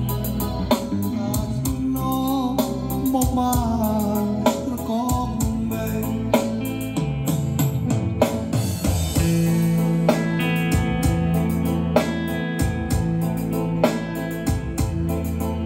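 Khmer song playing: singing over guitar and drums with a steady beat.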